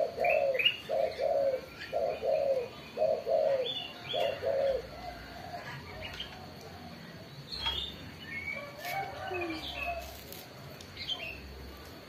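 Caged dove cooing in an even run of low, paired notes that stops about four and a half seconds in. Small birds chirp on and off throughout.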